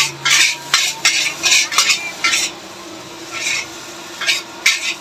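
Metal spatula scraping and clanking against a wok in quick strokes, about two or three a second, with a brief pause around the middle, as fried rice is stirred and tossed.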